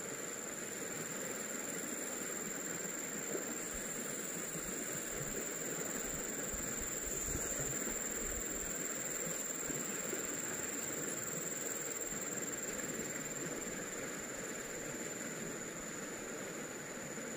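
Steady outdoor background hiss with a constant high-pitched whine above it, even and unchanging throughout.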